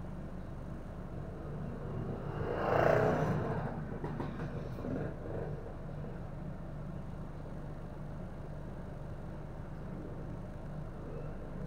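East Lancs Omnidekka double-decker bus's diesel engine running with a steady low rumble. About three seconds in, a louder rush of noise rises and fades.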